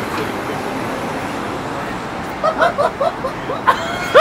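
Steady city street traffic noise, with people's voices talking indistinctly from about halfway through.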